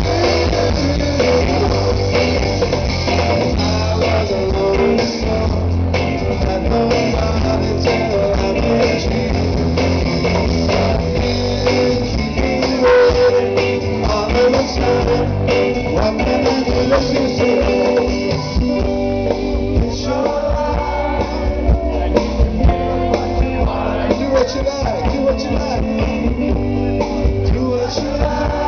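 Live rock band playing: electric guitar, bass, drums and keyboard with a male lead vocal, heard from within the crowd through a low-quality recording.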